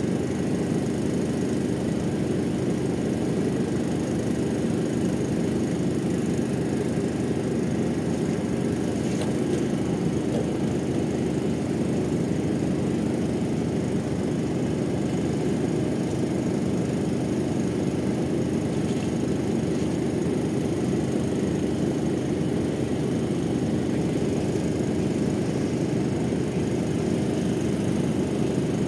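Ship's engines running, a steady low rumble with a constant hum that does not change.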